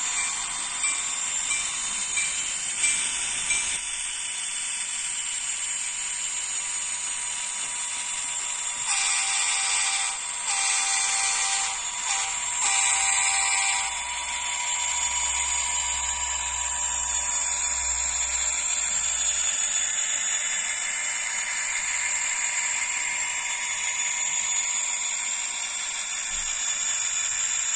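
Kato N-scale SD70 diesel locomotive with a DCC sound decoder, its diesel engine sound coming thin and high through the tiny onboard speaker, over the running noise of the model on its track. About a third of the way in the decoder sounds the horn in four blasts, long, long, short, long: the grade-crossing signal.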